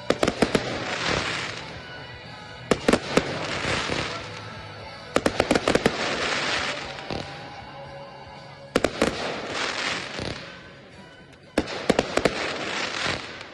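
Professional display fireworks going off in salvos. Five quick clusters of sharp bangs come about every three seconds, each trailing into a crackling hiss as the effects burn out.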